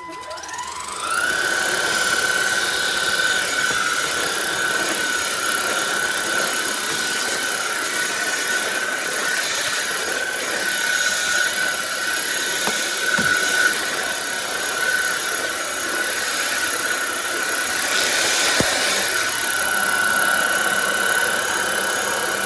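INTETURE cordless stick vacuum switched on: its motor spins up with a rising whine over about a second, then runs steadily with a high whine, with a few brief ticks along the way.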